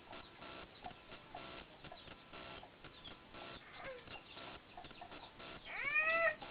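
Scattered short, faint animal calls, with one louder drawn-out call about six seconds in that rises in pitch and then levels off.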